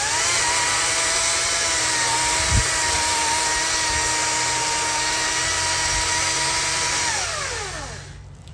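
Chainsaw engine revved to full throttle, holding a steady high pitch for about seven seconds, then winding back down to idle near the end. A short low thump about two and a half seconds in.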